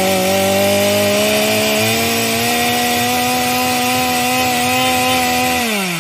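Chainsaw running at high revs, loud: its pitch climbs at the start, holds steady, then sinks near the end before the sound cuts off abruptly.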